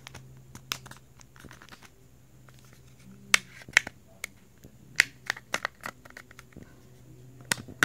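Plastic back cover of an LG Phoenix 3 phone being pried off by fingernail: irregular sharp clicks and snaps as its clips let go, over a faint steady low hum.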